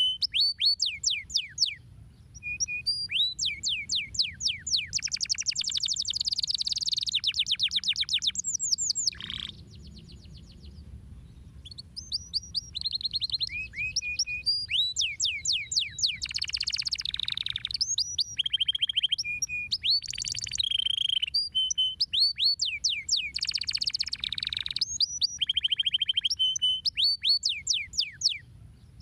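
Domestic canary singing a long song of rapid trills and rows of quick downward-sweeping whistled notes, with a short break about a third of the way through.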